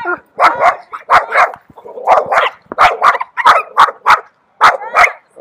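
A dog barking over and over in a fast run of short, sharp barks, about two to three a second, loud.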